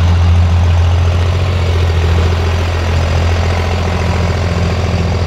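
A Dodge Ram diesel drag truck's engine idling at low speed, a steady deep drone with no revving.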